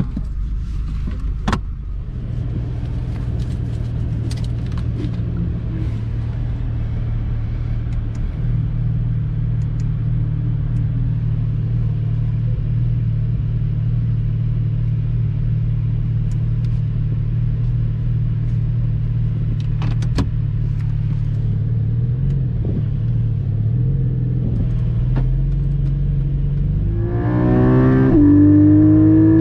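Porsche 718 Cayman GT4 MR's 4.0-litre flat-six idling steadily, heard from inside the cabin. About 27 s in the revs climb as the car pulls away, the pitch rising with a brief dip near the end.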